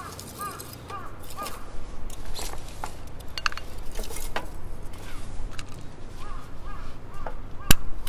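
Kindling sticks clicking and knocking as they are handled, with one sharp crack near the end. A bird calls in quick runs of short notes, about two or three a second, at the start and again in the last two seconds.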